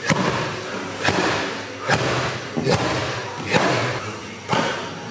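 Gloved ground-and-pound strikes landing on handheld leather strike pads: about six sharp thuds, a little under a second apart.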